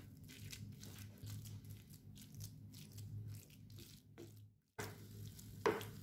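Wooden spatula stirring and scraping crumbled cauliflower around a nonstick frying pan: a quick run of soft scrapes over a faint sizzle and a steady low hum. It breaks off for a moment a little past halfway.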